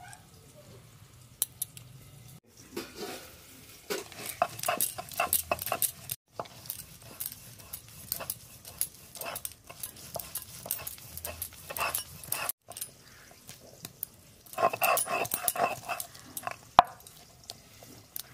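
Poppy seeds and melon seeds being ground by hand on a scored stone slab with a stone muller (sil-batta): stone scraping and crunching against stone in irregular runs of quick strokes with short pauses.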